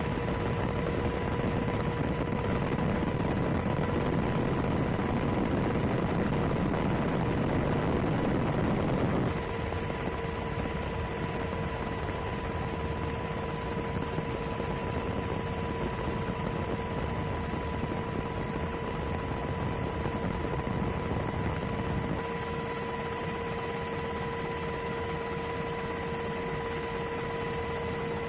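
Steady aircraft engine noise with a constant hum running through it. It drops in level about nine seconds in and again a little past twenty seconds.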